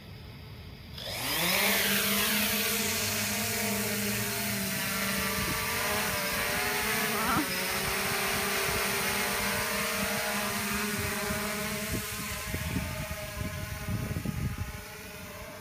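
3DR Solo quadcopter's four electric motors and propellers spinning up about a second in for takeoff, rising in pitch, then a steady buzzing whine in flight with a brief pitch wobble midway. The whine grows fainter near the end as the drone climbs away.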